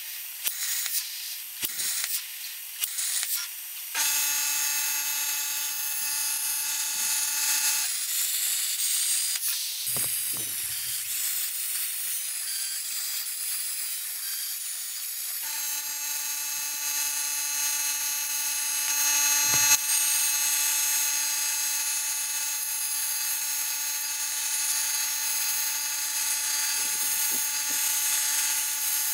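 CNC plasma cutter cutting steel plate: a steady hiss with a pitched whine running through it. It opens with a few seconds of sharp clicks before the cut starts. For several seconds in the middle the whine drops out and only the hiss remains, then it comes back.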